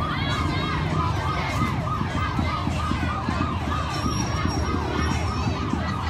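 Siren yelping: a fast up-and-down wailing tone repeating about four times a second, over a low steady rumble.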